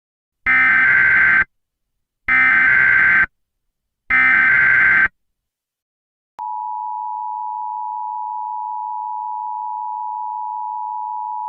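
Emergency Alert System tones: three evenly spaced bursts, each about a second long, of the SAME digital header data, then after a short gap the steady two-tone EAS attention signal, which starts about six seconds in and holds. Together they announce an emergency alert message, here a siren test.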